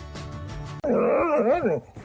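Background music stops abruptly about a second in. A dog then vocalizes loudly in long drawn-out sounds whose pitch swoops up and down.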